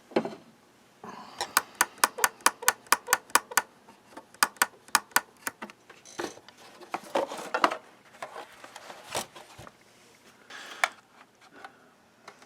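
Vintage Marconi 2004 transistor radio being tried out after its scratchy volume pot was cleaned: a run of sharp clicks and pops about four a second, a second shorter run, then scattered crackling and a few single clicks.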